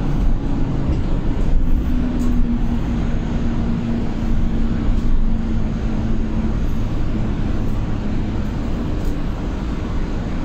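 Cabin noise inside a Solaris Urbino 9 LE battery-electric bus on the move: steady low road and tyre rumble, with a faint low hum from the electric drive about two seconds in that fades out a few seconds later, and a few light rattles from the interior.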